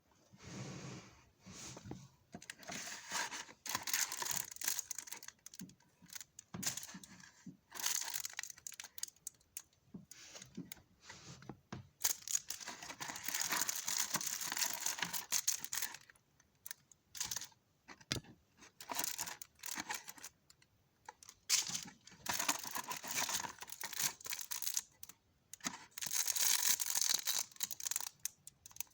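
Plastic packaging being handled, crinkling and tearing in irregular bursts with short pauses while stickers and a squishy toy are packed.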